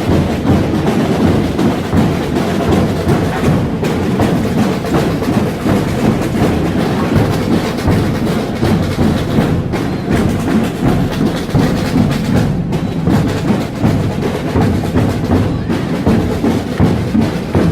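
Massed drums played together by a large marching group of drummers: a loud, dense, unbroken wall of drumming with deep booming beats under it.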